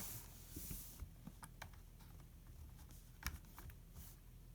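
Faint, scattered clicks and taps of plastic LEGO pieces as a LEGO puzzle box is handled, with a few sharper clicks about a second and a half in and again past three seconds.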